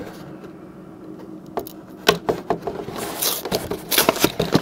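Cardboard collection box being handled and opened: a quiet moment, then scattered taps and knocks of the box, with a brief scraping rustle of cardboard about three seconds in.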